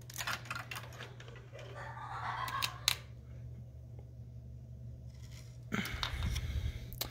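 Plastic Lego bricks clicking and rattling as a large deck section of a brick-built ship is lifted off by hand and moved aside, with a sharp click about three seconds in.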